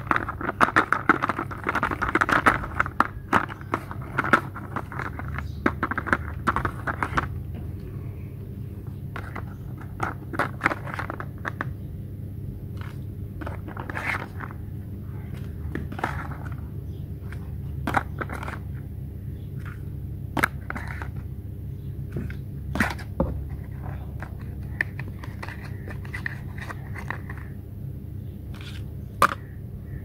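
Plastic toy pizza cutter rolling and scraping over plastic pizza slices in a plastic pan: a dense crackling rattle for about the first seven seconds, then scattered plastic clicks and knocks as slices are lifted and set down with a plastic spatula. A steady low hum runs underneath.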